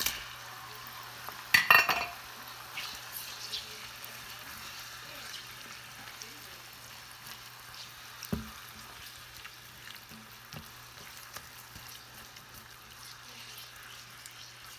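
Shrimp, onions, garlic and broccoli sizzling in a frying pan, with light clicks of stirring. A loud clatter of pan and utensil about two seconds in, and a single knock past the middle.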